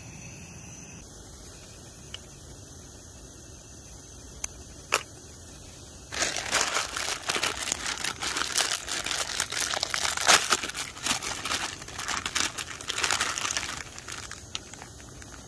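Plastic instant-noodle packet crinkling and tearing open in the hands, a dense, irregular crackle that starts about six seconds in and dies down near the end. Before it there is only a low steady background with two short clicks.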